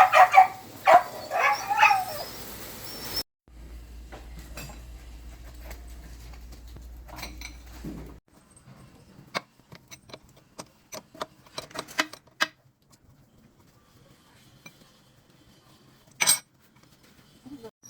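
A dog yelps a few times. After a cut comes a steady low hum, then a run of light metallic clinks and taps, with one louder knock near the end.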